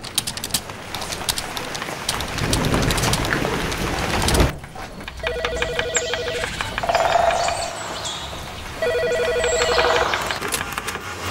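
A desk telephone ringing with an electronic warbling two-tone ring, in bursts of about a second, starting about five seconds in and again near nine seconds. Before that, a few keyboard clicks and a rising swell of noise that is the loudest part and cuts off suddenly.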